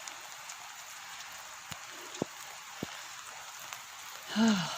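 Heavy rain falling steadily as an even hiss, with a few louder single drops ticking close by.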